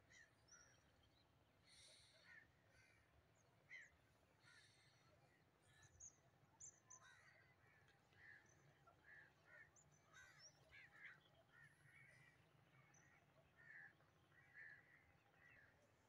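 Faint crow caws and other short bird calls, scattered irregularly and never for long.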